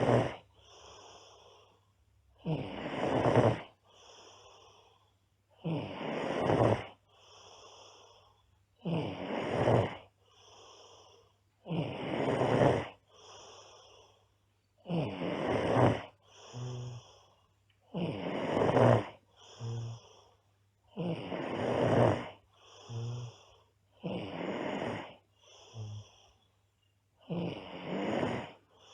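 A girl snoring loudly in her sleep: a loud snore about every three seconds, each followed by a softer breath.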